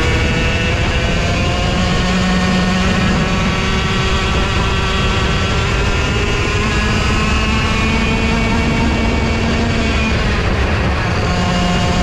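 Racing kart engine running under power along the track, its pitch climbing slowly over the first few seconds, holding high, then dipping slightly near the end before rising again.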